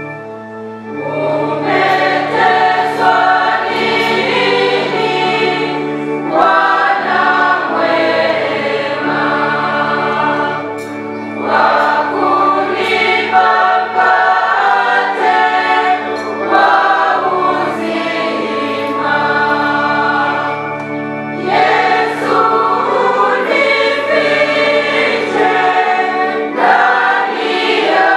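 Church choir singing a hymn over steady held keyboard chords, the phrases coming in sections of about five seconds.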